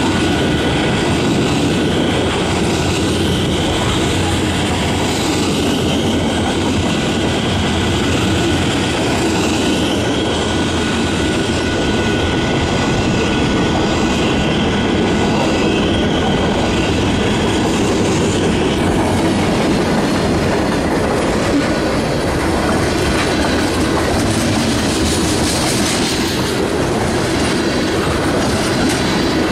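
Freight cars of a long mixed freight train rolling past, steel wheels clacking over the rail joints over a steady rumble and rattle. A faint, thin, steady high squeal runs through the first half.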